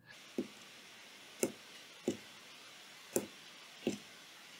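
Small tactile push button clicking five times at uneven intervals as it is pressed and released, working a 555 timer wired as a toggle switch that turns an LED on and off.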